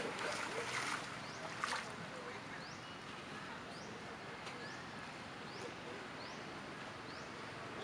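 Water splashing and sloshing in a pond as a macaque moves through the water, with a last splash about two seconds in. Under it, a short high rising chirp repeats about once a second.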